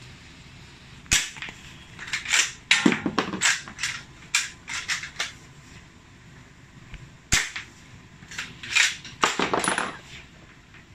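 Spring-powered Kar98k airsoft rifle firing two sharp shots about six seconds apart. After each shot comes a quick run of clicks and clacks as the bolt is worked back and forward to eject the plastic shell and chamber the next round.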